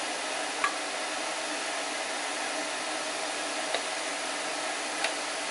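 Light clicks of a glass sight-tower section and a copper bubble-cap plate knocking together as they are handled and fitted by hand, three times, over a steady hiss.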